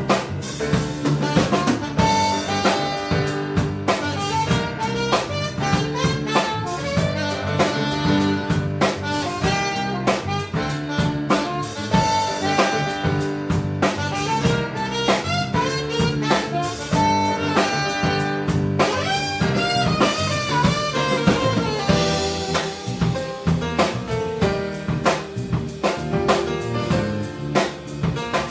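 Live jazz band playing: saxophone and drum kit over electric bass, with grand piano and congas.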